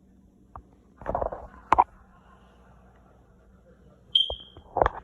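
Kitchen handling noises while a sandwich is being made: a thump with a rustle about a second in, a sharp knock just before two seconds, a short high squeak just after four seconds, and another knock near the end.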